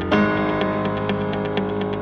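Background music with held chords; a new chord comes in just after the start.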